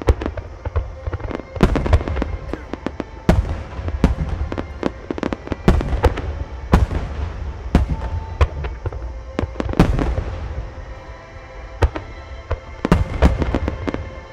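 A super-large starmine fireworks barrage firing: a rapid run of sharp booms and cracks with crackling between them, thinning out after about ten seconds before a last close cluster of booms near the end.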